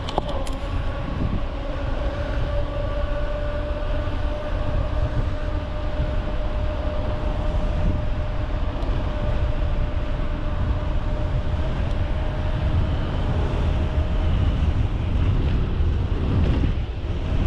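Wind rushing over the microphone while a mountain bike rolls along a trail, with a thin steady whine that stops near the end.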